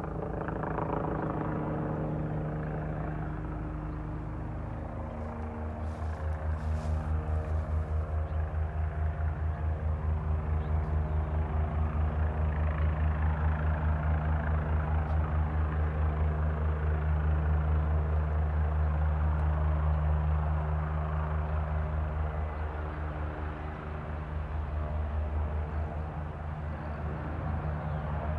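Helicopter descending to land, its rotor blades beating in a steady rapid pulse over the low drone of the engine. It gets louder about six seconds in.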